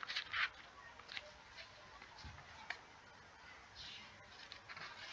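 Quiet room tone with a few faint, short clicks and rustles scattered through it.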